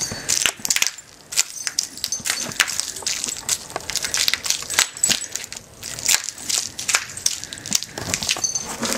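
Plastic parts of a smashed coffee maker being crunched and cracked: a fast, irregular run of sharp knocks and snaps.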